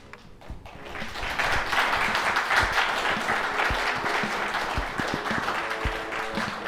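Audience applauding, swelling up about a second in and holding steady. Music with a steady beat of about one low thump a second plays underneath, its notes growing clearer near the end.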